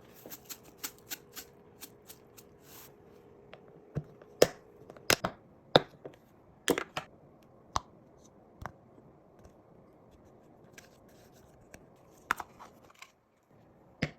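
Irregular sharp clicks and taps from handling food and utensils while making a lunchbox, with a few louder knocks in the middle and a short cluster near the end.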